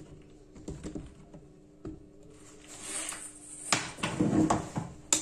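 Handling noise from a metal spiral shower hose being held and flexed by hand: a few faint clicks at first, then from about three seconds in louder clinks and scraping of the metal coils.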